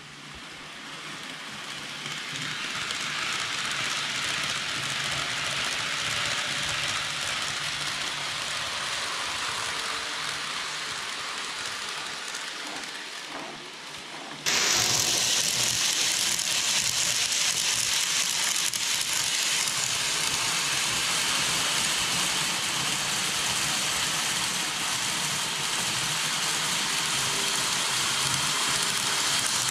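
Steady hissing run of N-gauge model trains on layout track, fading in at the start and jumping suddenly louder about halfway through.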